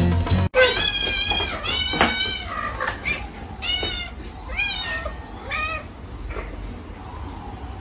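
A young cat meowing over and over: about six high-pitched meows, the first ones loudest, growing fainter toward the end.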